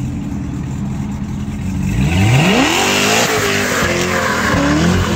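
Car engine running at low revs, then revving sharply upward about two seconds in and swinging up and down in pitch as the car accelerates hard, through a loud aftermarket exhaust.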